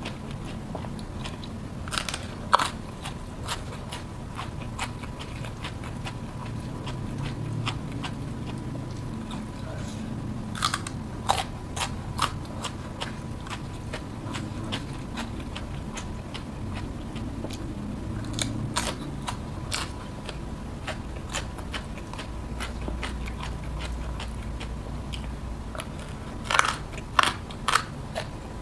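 Close-miked eating: crunchy bites and chewing of raw vegetables dipped in sambal. Louder clusters of crunches come about two seconds in, around ten to twelve seconds, and again near the end.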